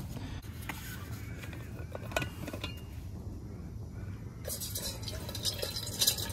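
Light metallic clinks as the cap of a stainless steel water bottle is unscrewed. From about four and a half seconds in, water pours from the bottle into a stainless steel billy pot.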